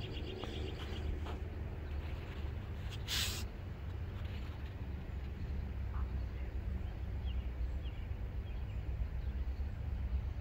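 Outdoor ambience: a few faint bird chirps over a steady low rumble, with a brief hiss about three seconds in.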